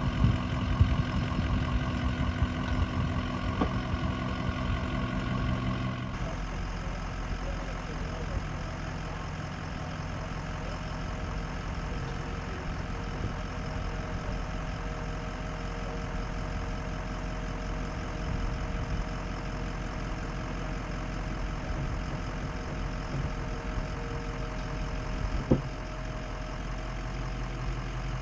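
Ford F-250's 6.0 L Powerstroke V8 turbodiesel running steadily at low speed while crawling down a rock on a trail. A single sharp knock about 25 seconds in.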